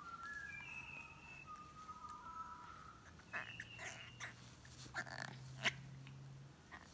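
Birds chirping faintly in the background: a string of short, clear whistled notes. A few short clicks and scuffs come about halfway through.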